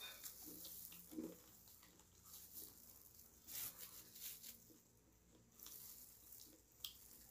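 Faint eating sounds: chewing with soft, scattered clicks and crackles from mouths and gloved hands pulling apart fried chicken, over a low hiss.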